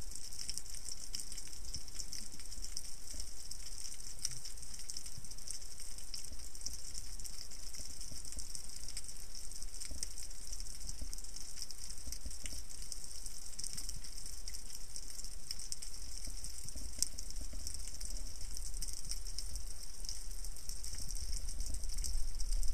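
Underwater ambience picked up through a camera housing: a steady high crackling hiss made of many tiny clicks, with a low rumble of water movement that grows louder near the end.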